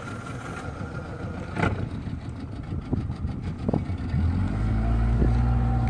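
Boat engine running, growing louder and steadier about four seconds in as it speeds up, with a single knock against the boat about a second and a half in.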